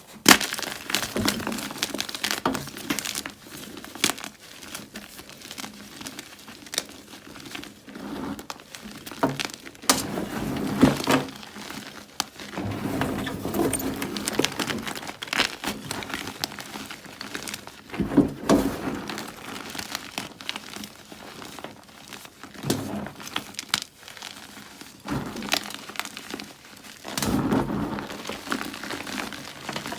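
Ader gym chalk blocks being bitten and chewed close to the microphone: a dense run of irregular crunches and crumbles, with louder clusters of bites every few seconds.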